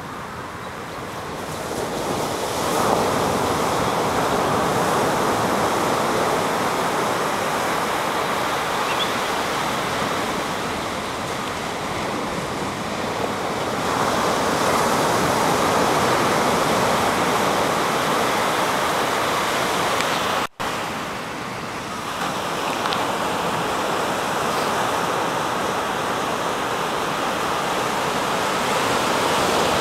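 Ocean surf breaking and washing up the beach: a continuous rush that swells and eases as each wave comes in. The sound cuts out for an instant about two-thirds of the way through.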